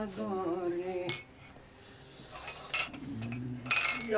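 Dishes and cutlery clinking and knocking a few times as they are handled.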